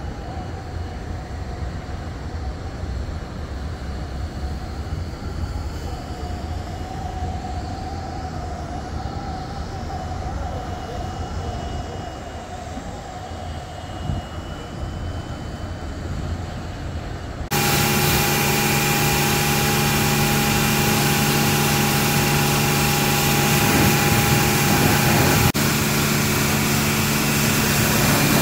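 Low outdoor rumble at first. About two-thirds of the way through, it switches abruptly to the loud, steady hum and whine of a car-wash machine motor running in the wash bay.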